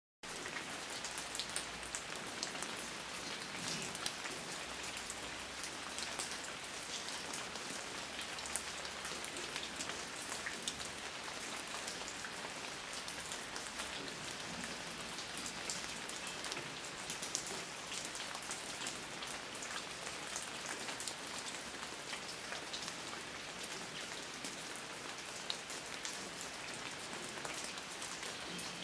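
Steady rain falling on a surface, a dense even hiss with many individual drops pattering through it.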